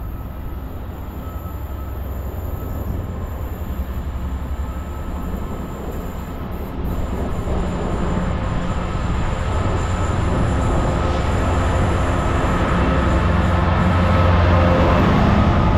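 Freightliner Class 66 diesel locomotive with its EMD two-stroke V12 engine, hauling a container freight train. It approaches and passes, and its engine drone grows steadily louder.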